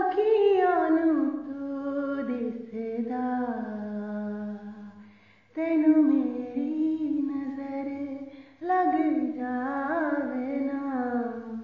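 A woman singing a Punjabi song without accompaniment, in long held notes that slide and waver in pitch. She breaks between phrases twice, about five and a half and eight and a half seconds in.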